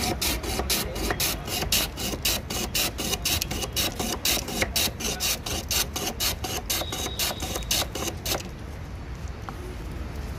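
Ice being shaved for a baraf gola, scraped across a blade in quick rhythmic strokes, about three to four a second, stopping about eight seconds in.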